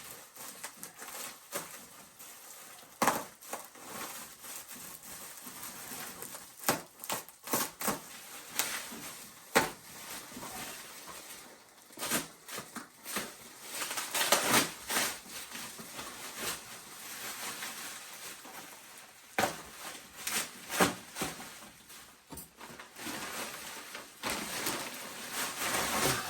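Packaging being handled while a new chainsaw is unpacked: irregular rustling and crinkling with scattered knocks and clicks.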